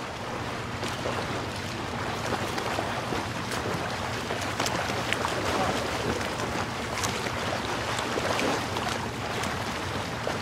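Steady hiss dotted with scattered crackles and clicks over a low hum: an old-film-style intro sound effect under the title card.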